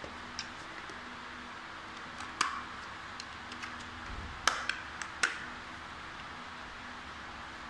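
Plastic casing of a power bank being pried open by hand, its snap-fit clips giving with a few sharp clicks and cracks. The loudest is about four and a half seconds in, and a quick cluster follows in the next second.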